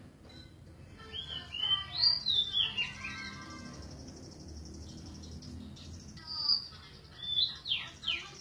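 Golden-bellied gerygone (remetuk laut) singing: a quick, varied phrase of high notes about a second in, then near the end a run of thin whistles, each sliding downward.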